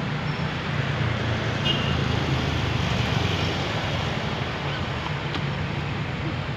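Steady low rumble of street traffic with wind noise on the microphone.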